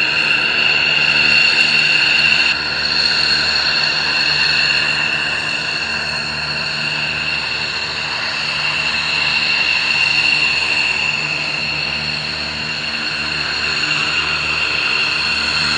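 F-16 fighter jets taxiing with their turbofan engines at idle, a steady high-pitched whine over a broad rushing noise.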